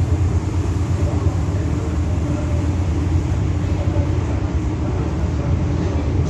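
Metro Cammell electric multiple unit train heard from on board while running between stations: a steady low rumble of wheels on rail and running gear.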